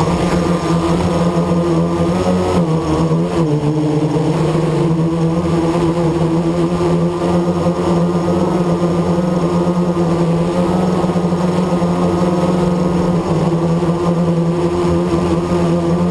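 Blade 350 QX quadcopter's four brushless motors and propellers buzzing steadily in flight, heard up close from the camera on board, with a brief dip in pitch a few seconds in.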